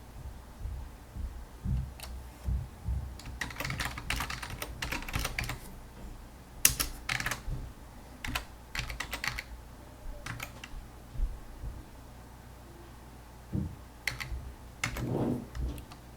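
Typing on a computer keyboard: irregular runs of key clicks with short pauses between them, densest a few seconds in.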